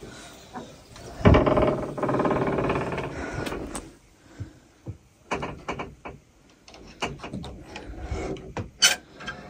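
Wooden door creaking open on its hinges, one long creak starting suddenly about a second in, followed by scattered light knocks and clicks.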